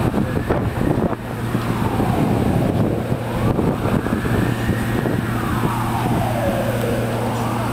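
Emergency vehicle siren wailing, its pitch sliding slowly down and back up about once every four seconds, over a steady low hum.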